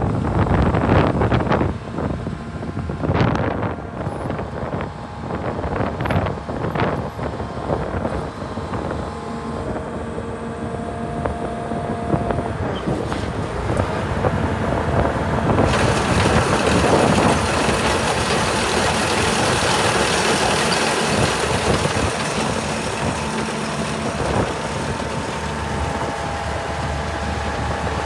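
Case IH 2388 Axial-Flow combine's diesel engine running steadily, with wind gusting on the microphone in the first several seconds. Just past halfway the sound turns suddenly brighter and hissier and stays that way.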